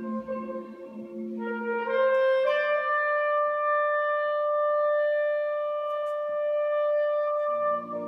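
Live folk band playing a slow instrumental passage with no singing. Long held notes step up twice in the first few seconds, then one high note holds steady, and a lower, fuller chord comes in near the end.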